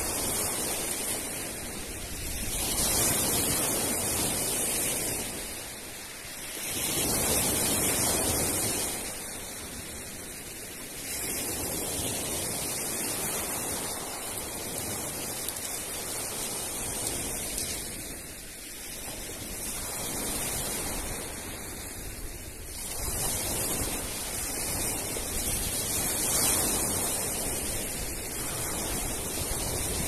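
Sea waves breaking and washing over a pebble beach, the surf swelling louder and falling back every few seconds.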